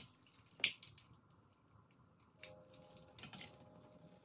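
Light clicks and taps from a small jar being handled in the hands, with one sharper click about half a second in and a few fainter ticks later.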